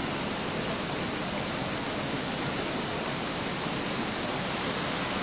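Steady rushing noise of a flooded river packed with broken ice.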